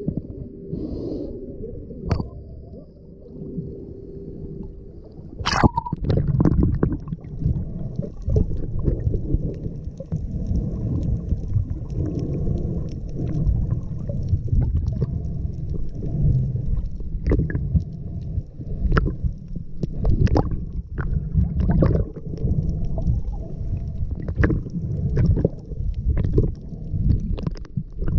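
Sea water heard through a submerged action camera: a sudden splash about five seconds in as the camera dips under, then a muffled low rumble of water moving against it, with many scattered clicks and crackles.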